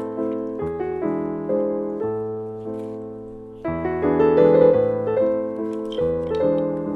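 Background piano music: gentle sustained chords changing about every half second to second, briefly fading near the middle before a new chord comes in.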